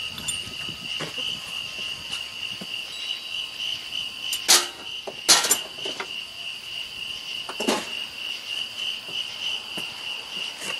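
A steady, high pulsing insect chorus, with three sharp knocks: two close together a little under halfway, and one more about two-thirds through.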